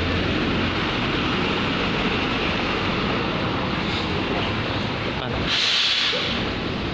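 Steady engine noise of an idling airport apron bus, with a short hiss of air about five and a half seconds in.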